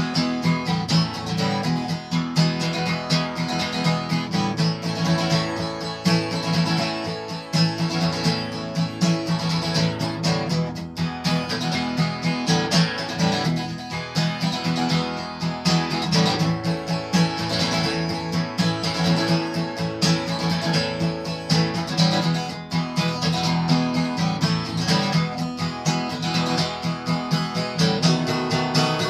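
Acoustic guitar playing an instrumental break in a slow blues, a continuous run of picked notes and strums with no singing.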